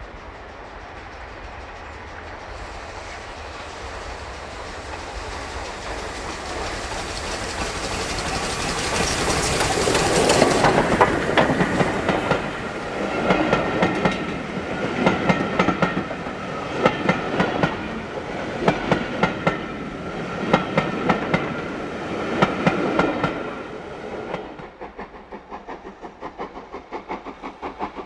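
Steam-hauled passenger train approaching and passing close by: the sound builds to a peak about ten seconds in, then the coaches' wheels clatter over the rail joints in regular groups. Near the end it changes suddenly to a fainter, quicker pulsing as another steam locomotive works towards the bridge.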